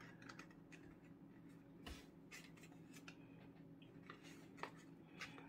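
Near silence with faint rustles and a few small ticks of folded paper being handled as the paper windshield piece is worked into the boat.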